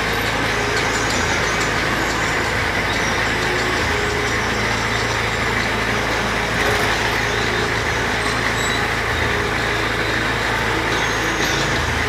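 Jeep-style kiddie ride car moving along its guide track, a steady, unbroken running noise of the vehicle and its wheels.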